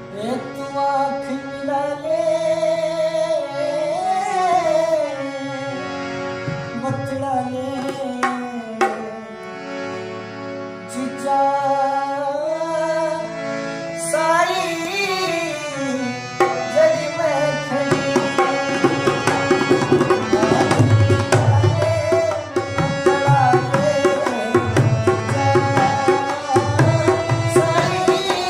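Haryanvi ragni folk song: a singer draws out long, gliding melodic lines, and about halfway through hand-drum strokes come in with a fast, steady rhythm under the singing.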